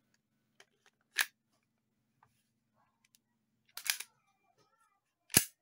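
Sharp clicks of a WE Tech G26 airsoft pistol being handled: a click about a second in, a quick double click near the middle and a louder snap near the end.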